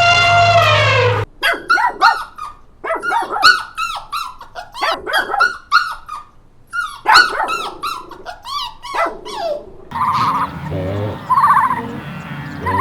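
Dog barking in many short, high yaps that come in quick clusters for about eight seconds. A long, held animal call cuts off about a second in, and a different warbling call takes over near the end.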